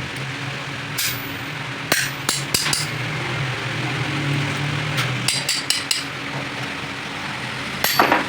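Hammer blows on metal in irregular clusters of a few quick strikes, over a steady low hum.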